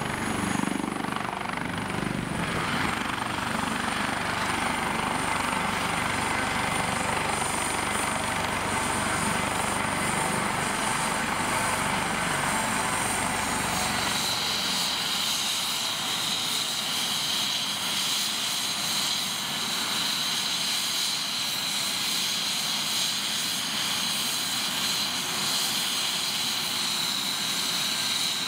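Twin-turbine AS365 Dauphin helicopter running on the helipad just after landing, main rotor still turning. About halfway through, the low rotor rumble falls away and a high, steady turbine whine comes forward.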